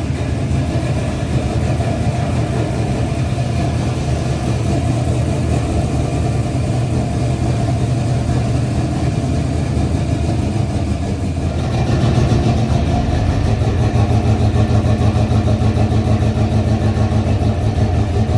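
A 6.0-litre LS V8 idling steadily, getting a little louder about two-thirds of the way through.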